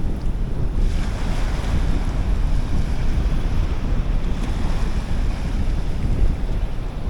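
Wind buffeting the microphone, a loud low rumble rising and falling over a steady noisy wash.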